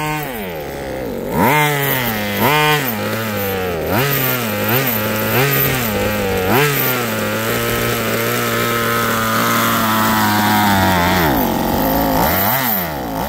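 Small two-stroke engine of an RC buggy revving up and down in repeated throttle bursts, then held at a steady high pitch for about three seconds before dropping back and revving again near the end.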